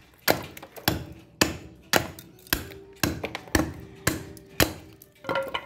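A heavy forged chopping blade striking into a wooden stick, about ten chops at roughly two a second, with a faint ring after some strikes.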